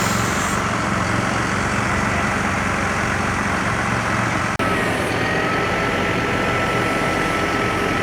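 Concrete pump truck's diesel engine running steadily. A thin, steady high whine rides over it in the second half.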